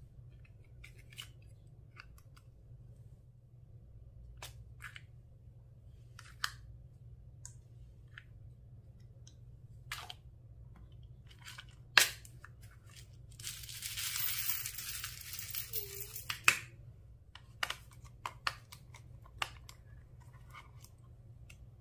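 Scattered small clicks and taps from handling slime and makeup items over a low steady hum, with one sharp, louder click a little past halfway. A few seconds of rustling, tearing-like noise follow, then more clicks.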